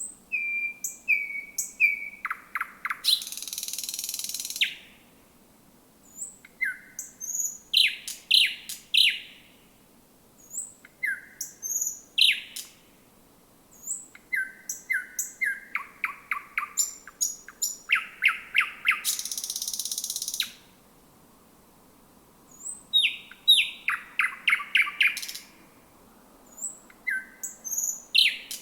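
Thrush nightingale singing: phrases of rapid, sharp repeated clicking notes and short whistles, separated by short pauses. Twice, a phrase runs into a long, dry, buzzing rattle of about a second and a half.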